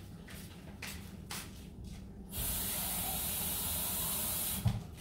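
Kitchen tap running for about two seconds, starting about two seconds in and cutting off suddenly, as water is run into a glass; a short thump as it stops.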